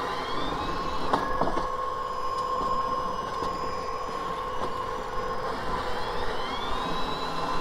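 Allett Stirling 51 battery-powered cylinder reel mower running with its 6-blade reel spinning, a steady electric motor hum. A high whine rises in pitch near the start and again about six seconds in, and there are a couple of light clicks about a second in.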